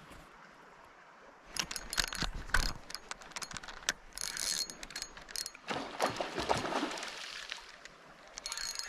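Fishing reel ratcheting and clicking in irregular bursts, starting about a second and a half in, mixed with knocks from handling the rod, as a hooked salmon is played.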